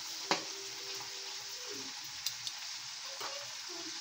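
Cubes of pork belly and potato sizzling as they fry in hot oil in a pan, a steady hiss with a few sharp clicks, the loudest about a third of a second in.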